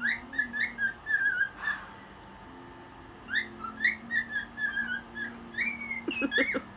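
Cockatiel whistling its song: two phrases of short, chirpy whistled notes with a pause of about a second and a half between them.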